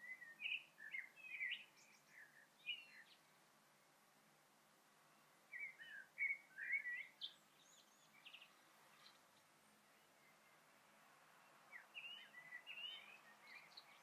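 A songbird singing three short phrases of quick, varied chirping notes, a few seconds apart, over a faint steady hiss.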